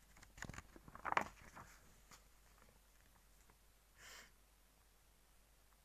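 Mostly quiet room tone in a pause between speech, with a few soft clicks and two short, faint noisy sounds, about a second in and about four seconds in.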